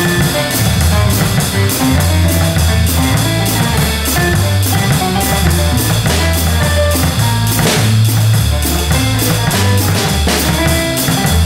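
Drum kit played with sticks, quick regular cymbal strokes over drum hits, along with a recorded band track carrying a bass line and guitar chords.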